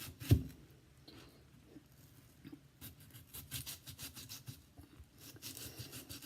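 Knife cutting an onion on a cutting board: one sharp knock of the blade on the board about a third of a second in, then a run of faint, crisp slicing clicks.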